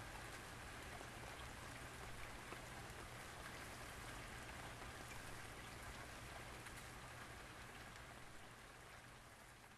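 Light rain falling steadily, with a steady low hum underneath; the sound fades down near the end.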